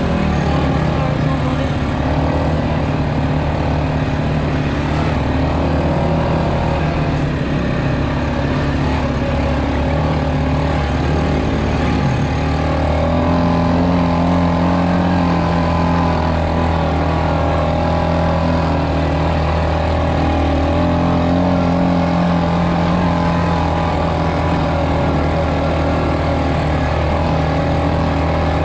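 ATV engine running steadily while riding on a dirt trail, its pitch shifting slightly about halfway through as the throttle changes.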